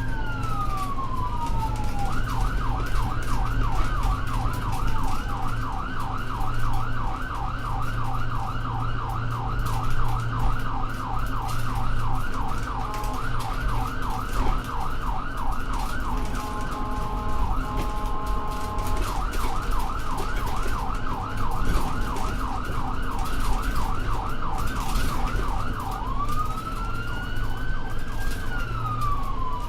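Ambulance electronic siren. It sounds a slow rising-and-falling wail, switches to a fast yelp about two seconds in, and returns to the slow wail near the end, over the steady low rumble of the vehicle's engine.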